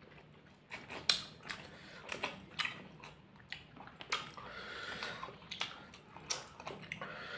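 Close-miked eating of spicy instant ramen noodles: wet chewing, lip smacks and slurps, as a run of sharp, irregular clicks.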